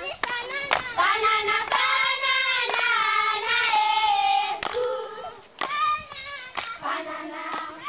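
A group of children singing together, with hand claps on the beat about once a second. It grows quieter about five seconds in.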